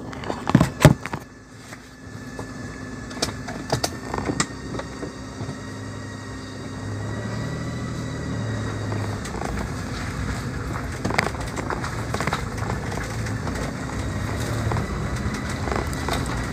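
Manual-transmission car heard from inside the cabin, its engine running as it pulls away and gathers speed, the sound slowly getting louder. A few sharp knocks in the first second, with a few more a few seconds in, as the driver works the controls.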